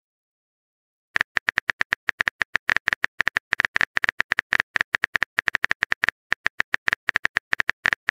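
Phone keyboard typing clicks from a texting app, a rapid, irregular string of short ticks that starts about a second in, as a message is typed out letter by letter.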